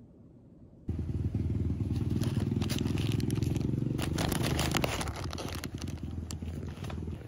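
A paper takeaway bag crinkling and rustling as a hand handles it, over the steady low running of a vehicle engine. The sound starts suddenly about a second in, and the crinkling is densest in the middle.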